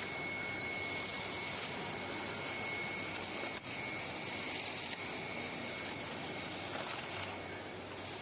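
CNC milling and drilling machine cutting a steel tube sheet: a steady whir and hiss with a steady high whine over it. The hiss brightens about a second in and eases near the end, with two short clicks around the middle.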